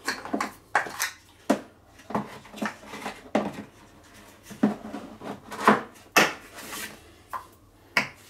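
Irregular sharp knocks and clacks of hard plastic as a Kärcher pressure washer's plastic wheel is handled and pressed onto its axle, about a dozen in all, the loudest about five and a half seconds in.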